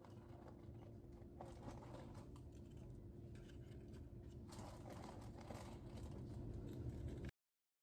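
Faint irregular clicking and rustling over a steady low hum with one held tone, cutting off abruptly near the end.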